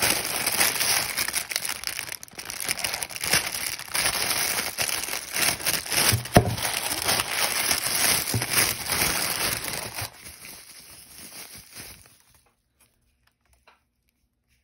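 Clear plastic wrap crinkling as hands pull it off slime jars, loud and continuous for about ten seconds, then thinning out and fading away about twelve seconds in.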